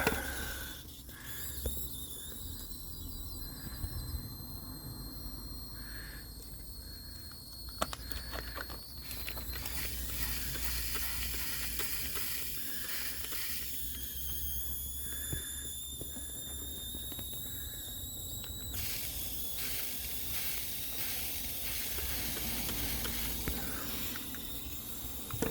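Air escaping from a pinhole puncture in an inflatable boat's tube, hissing and fizzing through soapy water, with a thin high squeal over it.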